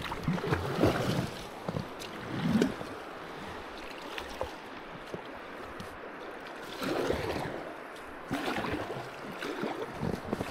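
Double-bladed kayak paddle strokes splashing and dipping in river water. Several strokes come early, then a quieter stretch, then more strokes near the end.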